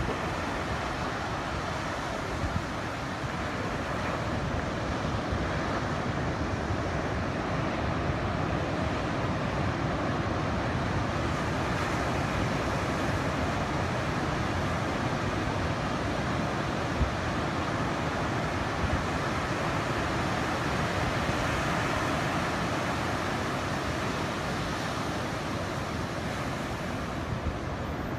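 Steady wash of surf breaking on a beach under typhoon swell, with wind rumbling on the microphone.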